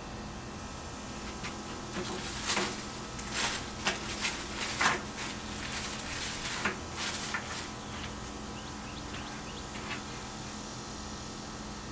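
Handling noises on a workbench: a run of short scrapes, rustles and clicks from about two to eight seconds in, over a steady low electrical hum.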